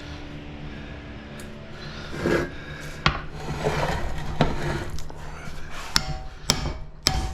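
Metal parts of a large electric motor being worked loose by hand: scraping, rubbing and clinking, a sharp click about three seconds in, then sharp metal strikes about every half second near the end.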